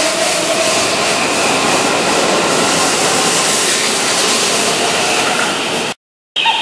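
Keihan 7000-series VVVF electric train running past the platform as it leaves, with a steady rush of wheels and motors. The sound cuts off suddenly just before the end.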